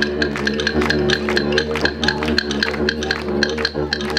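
Live Aboriginal music: a didgeridoo drone held steadily, with a sharp clicking beat in a fast, even rhythm over it.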